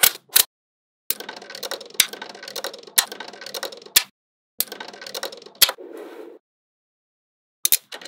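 Small magnetic balls snapping together with sharp clicks, about one a second, between stretches of rattling and scraping as the balls are handled and rolled against each other. The sound cuts out abruptly to silence three times.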